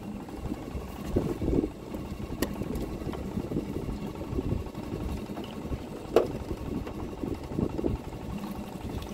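Outboard motor of a small aluminium boat idling, with two sharp knocks, a few seconds apart, as a crab trap is checked.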